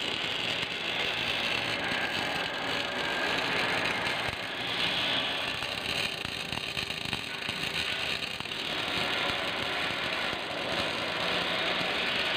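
Wire-feed (MIG/CO2) welding arc crackling steadily, a dense, rapid sizzle that swells a little now and then.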